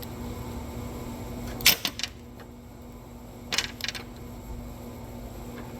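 Hand tools clinking: a socket and ratchet being handled and a socket tried for size on a mount bolt. There is a quick cluster of sharp metallic clicks about two seconds in, the loudest, and a second cluster a little after three and a half seconds.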